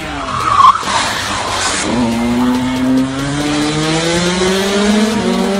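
Small motorcycle engine running and accelerating, its pitch climbing steadily through the last few seconds. About half a second in there is a short loud screech, the loudest moment.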